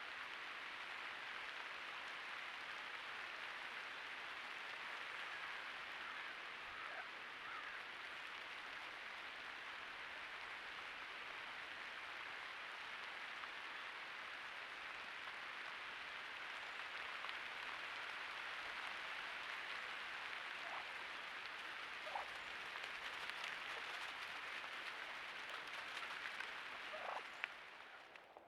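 Steady rain falling, an even hiss with a few louder drips scattered through it; the sound drops away abruptly near the end.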